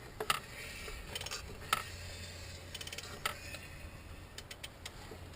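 A few sharp metallic clicks, about a second and a half apart, then a quick run of small ticks near the end: hand tools clinking on the engine.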